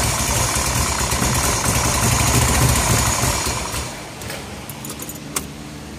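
Ferrari 308 GTSi's 2.9-litre V8 running steadily at idle, fresh from a timing-belt replacement, then falling away about four seconds in as it stops. A single sharp click near the end.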